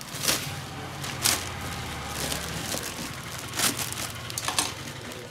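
Thin clear plastic bag crinkling and rustling as it is handled, with a few sharp crackles.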